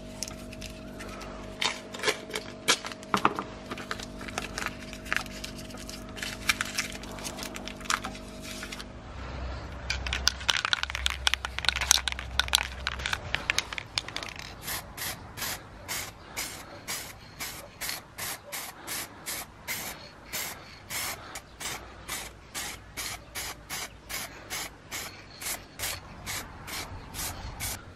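Paper crinkling and rustling as the iron is masked, over a steady hum. After about nine seconds an aerosol spray-paint can takes over, hissing in short bursts about two a second as the iron is coated black.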